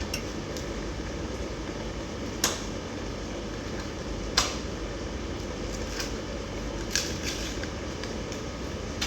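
A few sharp clinks of a cooking spoon against a pan while stirring, the two loudest about two seconds apart, followed by a quicker pair, over a steady low hum.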